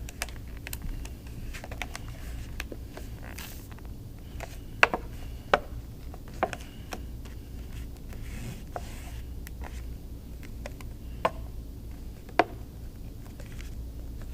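Hands pressing a glued paper plate down onto a paper sheet on a tabletop: light rustling with scattered sharp taps and clicks, a handful of them louder, over a steady low hum.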